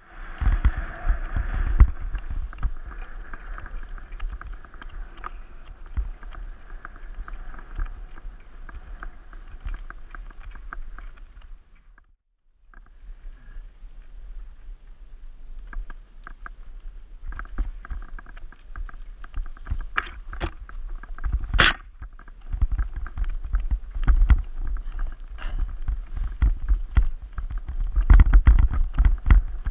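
Mountain bike ridden over a gravel road and a rough forest trail, heard from a bike-mounted action camera: a steady low rumble of wind and rolling, with constant uneven rattling and clattering of the bike over the bumps. One sharp, loud knock comes about two-thirds through, and the sound drops out briefly near the middle.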